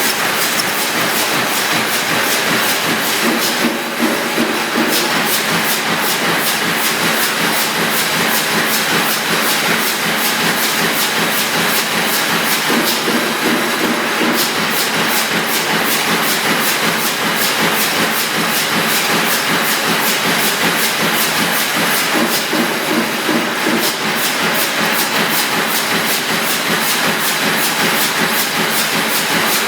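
A CNC sheet-feed press line running: steady, loud machine noise with a fast, even clicking, changing tone briefly about every nine seconds as the line cycles.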